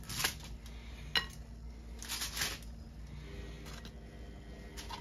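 Roast parsnips being set down on a china plate: a few soft knocks, one light clink with a brief ring about a second in, and a short scraping noise around two seconds in.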